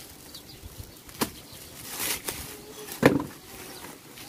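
Plastic parcel wrapping rustling and crinkling as it is cut and pulled open with a knife, with two sharp knocks, the louder one about three seconds in.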